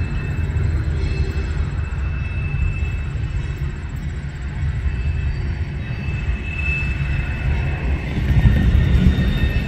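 Diesel locomotive rumbling at low speed as it approaches on a curve, growing a little louder near the end, with thin, steady high squeals from the wheels on the curved rail.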